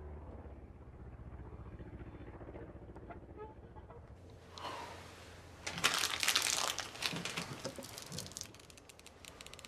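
A foil snack wrapper crumpled by hand about six seconds in, loud and crinkly, followed by fine rapid crackling as the crumpled wrapper settles on a wooden counter. A low steady rumble runs underneath the first few seconds.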